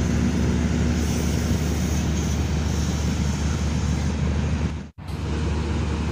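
Steady drone of a generator running, a loud low hum with a fainter wash of noise above it. It drops out for an instant about five seconds in, then carries on unchanged.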